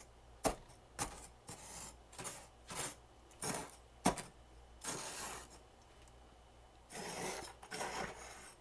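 Freezer frost being bitten and chewed close to the microphone: a run of sharp, icy crunches about one every half second to second, a short pause, then a longer grinding crunch near the end.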